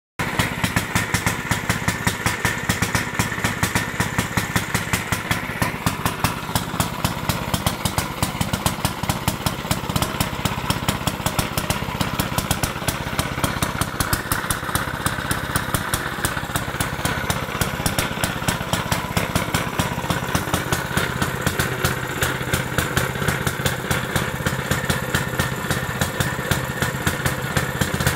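Villiers Mk 10 stationary engine running steadily at idle, a rapid, even firing beat with louder pulses a few times a second.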